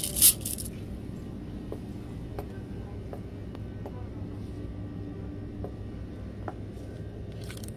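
A mesh bag of glass decorative gems rattling and clinking as it is handled, briefly, at the start. Then steady low store background hum with a few faint ticks, and a short rustle near the end.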